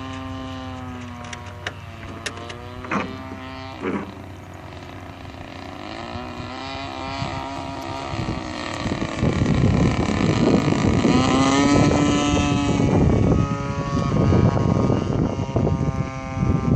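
Engine and propeller of a radio-controlled Sbach aerobatic model plane in flight, its pitch rising and falling as the throttle and distance change, with a few quick revs. From about nine seconds in it gets much louder and rougher.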